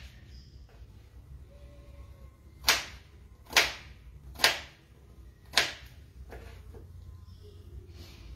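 Kitchen knife chopping potatoes on a plastic cutting board: four sharp chops about a second apart, starting a few seconds in, then a few fainter taps.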